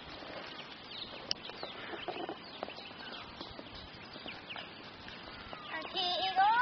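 Birds chirping faintly over an open-air background, with one loud rising call about six seconds in.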